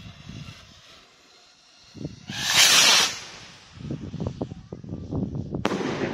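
Herlat ball rocket (68 g shell rocket) launching with a loud whoosh a little over two seconds in that lasts under a second, then bursting with a single sharp bang near the end, the bang's echo trailing off.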